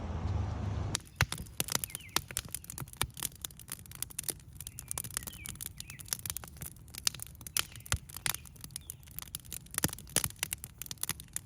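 Dense, irregular crackling clicks, many per second, with faint bird chirps behind them; a steady rumble cuts off about a second in.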